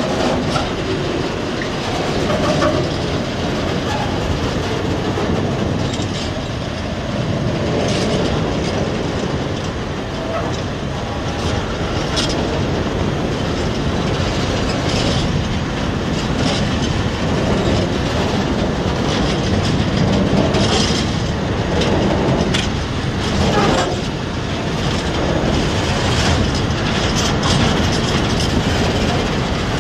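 Open gondola freight wagons rolling past on the track, their wheels rumbling steadily and clacking over rail joints in scattered sharp clicks.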